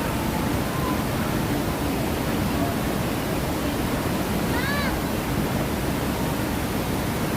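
Steady rush of water from the Grizzly River Run rafting ride, with a crowd murmuring. About five seconds in there is one short, high-pitched call.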